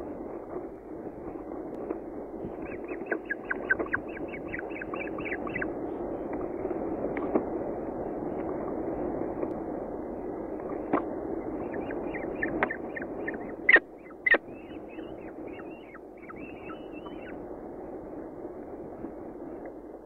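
Falcon chick begging while being fed: two runs of rapid, short high chirps over a steady low hum, with two sharp knocks a little past the middle.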